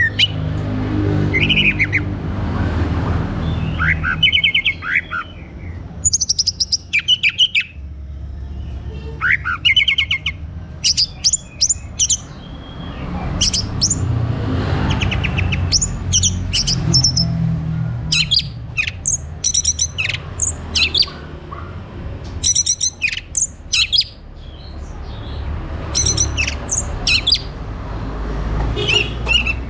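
Orange-headed thrush singing: clusters of quick, high chirps and trills every second or two. A low steady hum runs underneath.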